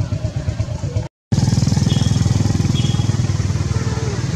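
A small engine running steadily with a fast, even pulse. The sound cuts out for a split second about a second in and comes back louder.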